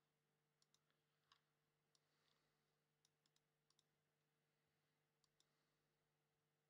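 Near silence: faint room tone with about a dozen very faint, scattered clicks.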